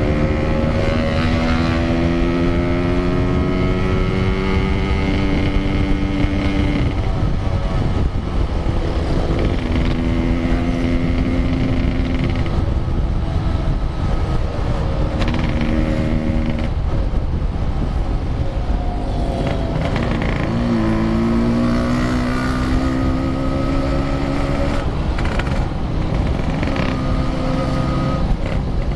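Yamaha RX-King's 135cc two-stroke single-cylinder engine pulling through the gears on the road: in each gear the pitch rises, then drops at every shift, several times. A steady low wind rumble sits on the helmet camera's microphone.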